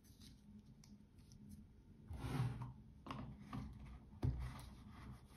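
Faint handling of a stainless-steel watch bracelet on its cushion as the watch is pressed into its presentation box: a brief rustle about two seconds in, a few light clicks, and a sharper knock a little after four seconds.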